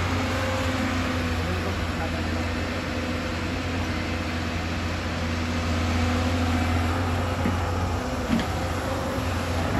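Hyundai 220LC crawler excavator's diesel engine running steadily while the machine swings and works its bucket: a constant low hum with steady tones above it.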